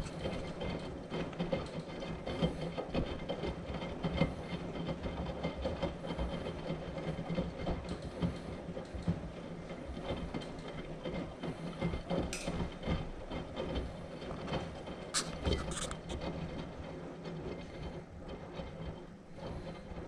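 Front-loading washing machine in its wash phase: the drum turning and tumbling laundry through soapy water, with sloshing and small irregular knocks over a steady low hum. A few sharp clicks come about two-thirds of the way through.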